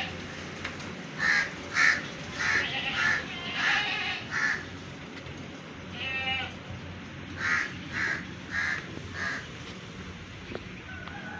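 Short animal calls repeated in runs of two to four, about two calls a second, over a steady low background noise.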